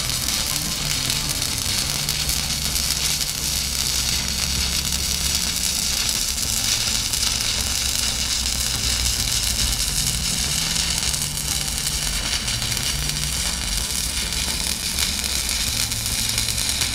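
Stick welding arc crackling and sizzling steadily as a flux-coated electrode is dragged along a downhand butt weld with correct technique, over background music.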